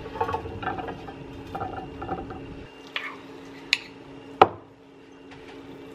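Roasted chickpeas sliding and pattering off a metal baking tray onto a ceramic plate, with light clicks and scrapes. A few separate clicks follow, then one sharp knock about four seconds in.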